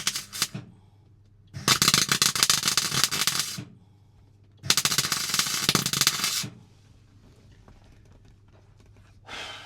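Welding a small patch plate into a car floor: short crackling weld runs, one ending just as it starts, then two of about two seconds each with pauses between.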